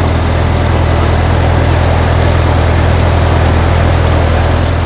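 Propane-powered Zamboni ice resurfacer's engine running close up: a really loud, steady low drone.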